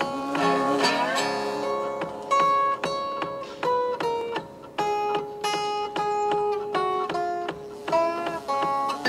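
Resonator guitar fingerpicked: single notes and chords ring out one after another, with a few notes slid or bent upward in pitch.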